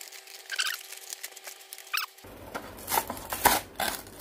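Plastic blister packaging and its cardboard backing crinkling and tearing as hands pull it open, in short crackly bursts that get louder about two seconds in.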